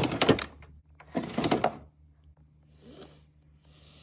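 Hard plastic toy parts being handled, rattling and clicking in two short bursts about a second apart.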